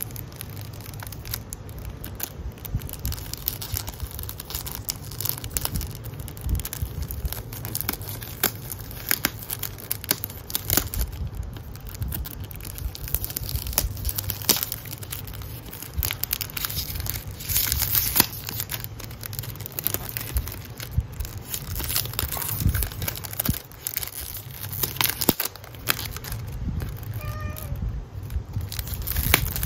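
Clear cellophane wrapping on a perfume box crinkling and tearing as it is picked open and peeled off by hand, a steady run of sharp crackles.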